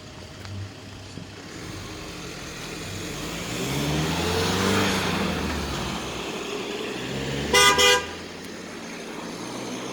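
A car drives past, its sound swelling and fading, then a car horn gives two short toots about seven and a half seconds in.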